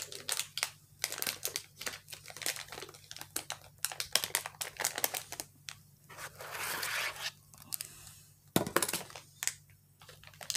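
A crinkly cookie wrapper being handled and pulled at while someone tries to open it by hand, in many short crackles. A longer rustle comes about two-thirds of the way through, and a single sharp knock follows near the end.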